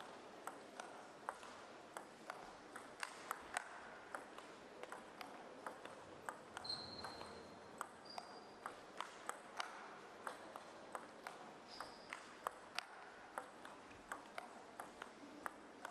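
Table tennis ball being struck back and forth in a long rally: sharp ticks of ball on paddle and table, about two or three a second, faint under hall ambience. A few short high squeaks come through about halfway.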